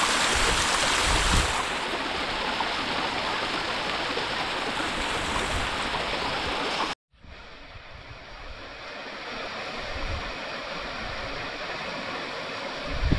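Rushing river water, steady and full. About halfway through it cuts out abruptly for a moment, then returns as a quieter, duller flow with a few low thumps near the end.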